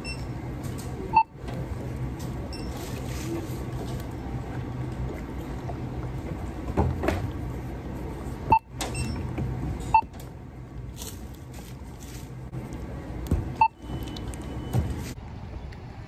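Store checkout-area ambience: a steady low hum with four short, sharp beeps spread through it.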